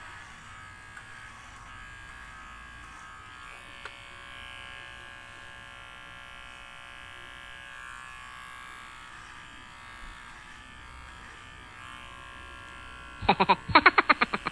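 Electric hair clipper buzzing steadily while shaving a head bald. About a second before the end, a loud, rapid pulsing sound breaks in over it.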